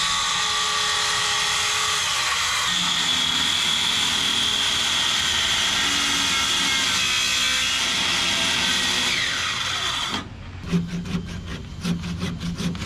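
Skilsaw electric circular saw running and cutting through a wooden boat rail: a steady, loud whine that winds down with falling pitch about ten seconds in. Then a handsaw cuts the wood with quick, even back-and-forth strokes.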